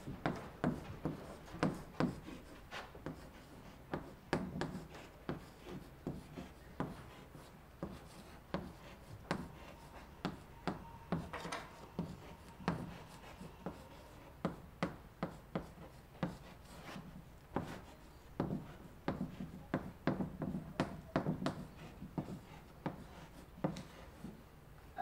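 Chalk writing on a wooden blackboard: a run of irregular taps and short scrapes, one to two a second, as the words are written out.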